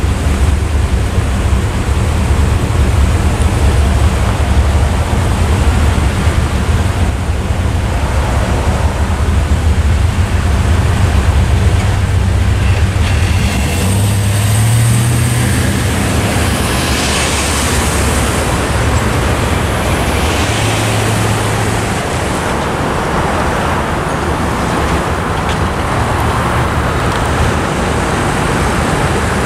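An engine idling nearby with a low steady rumble that stops about 22 seconds in, followed by road traffic driving over the railroad crossing once the gates are up.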